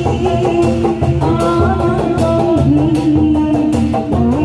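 Sundanese kuda renggong ensemble music: a held, sliding melody line over repeated low drum strokes and a quick, bright percussion beat.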